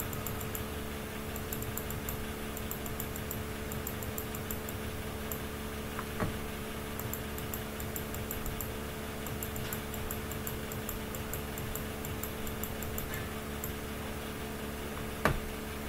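Computer mouse scroll wheel clicking in quick runs of ticks as a document is scrolled, over a steady low hum. There are two sharper single clicks, one about six seconds in and one near the end.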